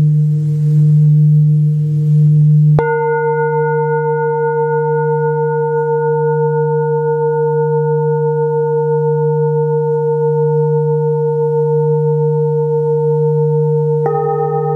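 Hand-hammered Tibetan singing bowls struck with a mallet and left ringing: a low hum under a wavering, pulsing tone. A fresh strike about three seconds in adds higher ringing tones, and another strike near the end adds a new set.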